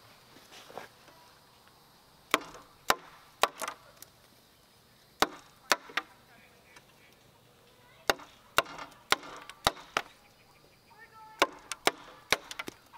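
A hand tool striking wood with sharp, loud blows in short groups of two to four, about half a second apart, with pauses of a second or two between groups.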